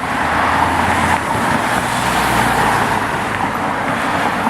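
Road traffic: a car driving past, a steady rush of tyre and engine noise with a low engine rumble that fades after about two seconds.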